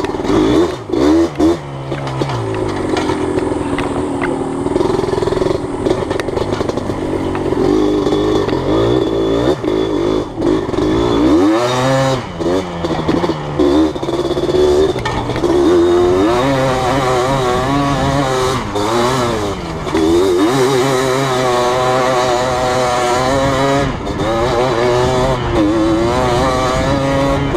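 Yamaha Blaster ATV's single-cylinder two-stroke engine running under way, its pitch rising and falling over and over as the throttle is opened and backed off.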